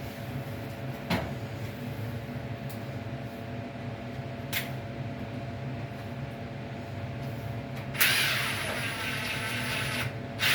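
A dryer vent hose and its fitting are being handled and pushed together: a couple of light clicks, then about eight seconds in a loud scraping rustle lasting about two seconds. A steady background hum runs underneath.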